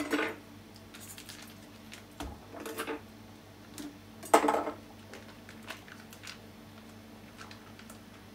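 Wrapped food packaging being handled and cut open with a chef's knife on a wooden cutting board: rustling and a few sharp knocks, the loudest right at the start and about four and a half seconds in.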